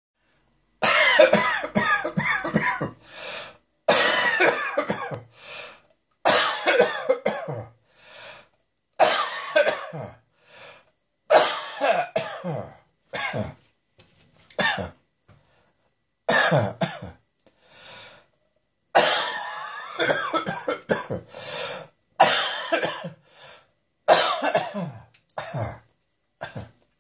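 A person coughing harshly and dryly in repeated fits, each fit a cluster of short hacking coughs, about ten fits separated by brief pauses.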